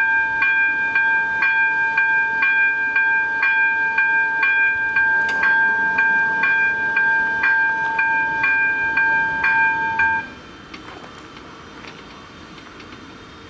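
Electronic warning bell of a Czech railway level crossing ringing: a steady several-note tone with about two strikes a second, sounding while the barrier arms lower. It cuts off suddenly about ten seconds in, once the barriers are down.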